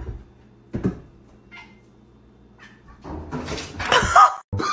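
A cat letting out one long, loud meow with a wavering pitch about three seconds in. It is preceded by two soft thumps near the start.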